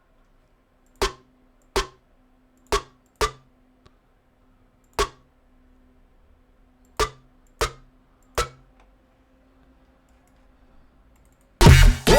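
Single electronic drum-sample hits, about eight of them at uneven intervals, as a drum sample is triggered one hit at a time in music software. Near the end, loud dubstep playback starts.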